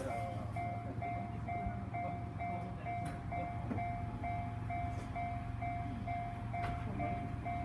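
Japanese railway level-crossing warning bell ringing, an electronic two-tone ding repeating steadily about one and a half times a second, with a low steady hum beneath.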